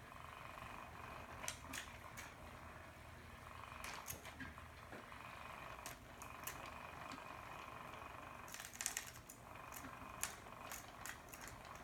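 Light, irregular clicks and taps of a kitten batting a small toy about on a hard wood-look floor, the toy and claws tapping the floor, with a cluster of quick taps a little after the middle. A faint steady hum lies underneath.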